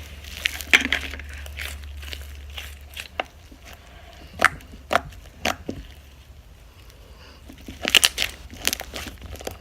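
Foam-bead slime being squished and stretched by hand, making scattered crackles and pops, with a cluster of them near the end.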